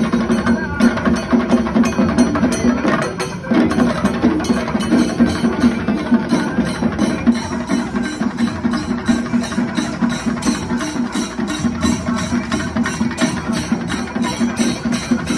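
A Kerala chenda drum ensemble, the cylindrical drums beaten with sticks, playing together in a fast, even rhythm of about four strokes a second.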